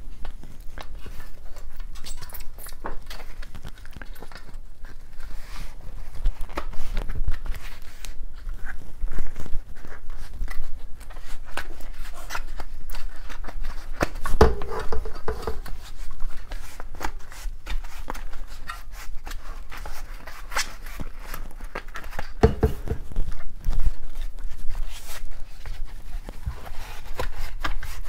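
Tubeless road bike tire being worked onto the rim by hand: the rubber bead rubs and scrapes against the rim, with irregular clicks and knocks as the tire and wheel are handled.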